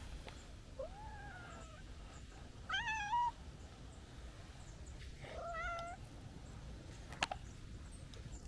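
Calico cat meowing three times, happy-sounding calls that glide up and down in pitch, the middle one the loudest. A single short sharp click comes near the end.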